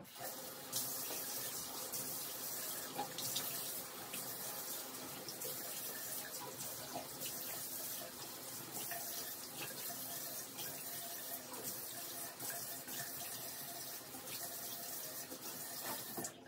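Tap running steadily into a sink, the water left on while a face cleanser is washed off.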